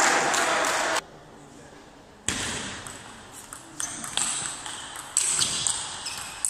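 Table tennis rally: the ball clicking off the bats and the table in an irregular series of sharp ticks, echoing in a large hall. The clicks come a few tenths of a second apart and start in the second half.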